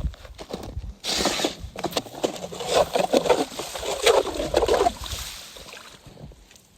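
Ice auger churning wet ice shavings and water in a freshly drilled ice fishing hole: crunching and splashing with many small clicks from about a second in, dying away after about five seconds.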